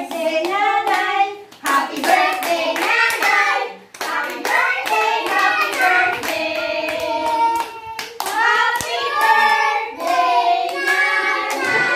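A group of people singing together while clapping their hands in rhythm.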